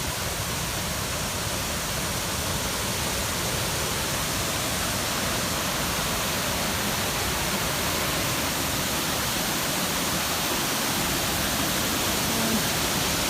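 Steady, even rush of river water pouring over a wide, low waterfall.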